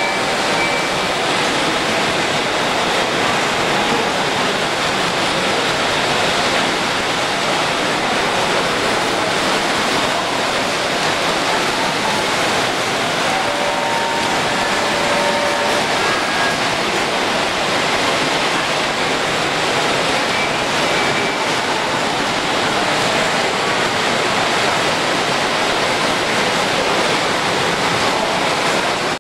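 Steady, even rushing din of a busy show hall, with small electric model trains running around the layout's track.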